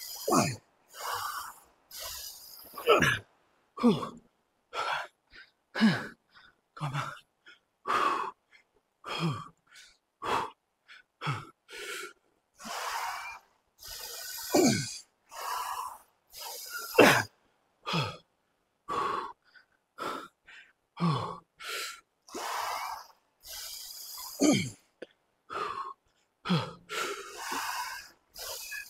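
A man breathing hard under the strain of barbell back squats. Sharp gasping inhales alternate with forceful exhales and short grunts that drop in pitch, about one breath a second.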